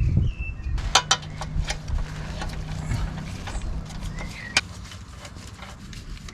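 Small sharp metallic clicks and clinks of oil-pan bolts being handled and started into the pan by hand: a quick cluster about a second in and one sharp click a few seconds later.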